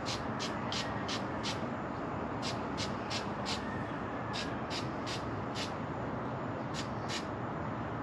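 Aerosol can of black spray paint hissing in short bursts, about sixteen in quick groups of two to six, over a steady low background noise.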